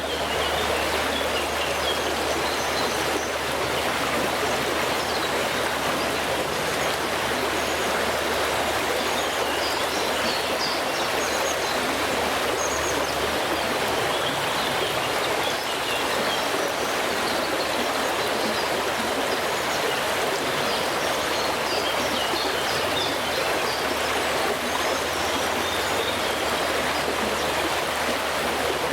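A small stream flowing steadily, an even rush of running water, with a few birds singing faintly here and there.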